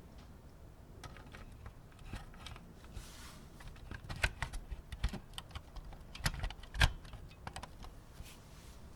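Scattered light clicks and taps of small hard parts of a 1:18 diecast Mini Cooper model being handled, with a few sharper clicks in the middle.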